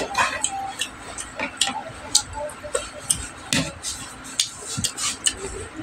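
Close-up chewing and lip-smacking by someone eating: irregular wet mouth clicks, a couple a second.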